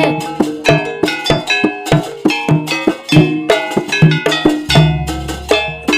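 Instrumental passage of traditional Javanese percussion music: quick, rhythmic strikes of ringing metal gong-chime tones over drumbeats, with no singing.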